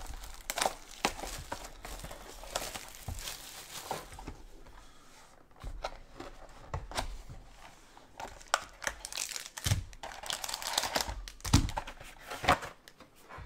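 Plastic shrink wrap crinkling and tearing as it is stripped off a sealed trading-card box. A couple of dull thumps in the second half come from the cardboard box being handled and opened.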